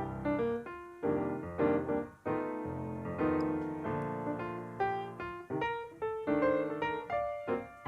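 Background piano music: struck notes in a flowing melody with chords.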